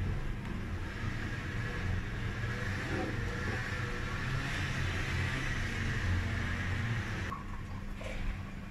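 Coconut-milk mixture boiling in a stainless steel pan on a gas burner: a steady low rumble with a hiss above it. The hiss drops away near the end.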